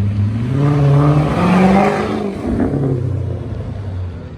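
Straight-piped 5.7 HEMI V8 with its mufflers and resonators removed, revved once from idle: the pitch climbs from about a second in, peaks near the middle, and drops back to a loud idle.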